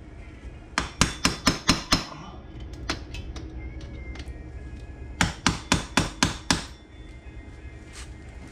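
Hammer blows on metal, the old drive chain's master link being knocked apart: two quick runs of about six sharp strikes each, roughly five a second, with a few single strikes between.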